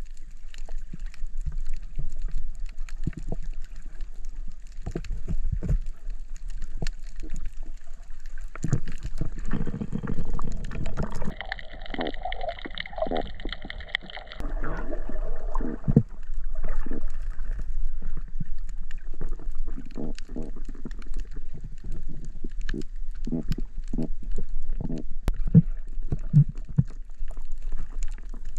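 Underwater sound picked up by a camera below the surface: muffled water movement and gurgling with scattered small clicks and knocks. A louder churning stretch comes about a third of the way in and lasts several seconds.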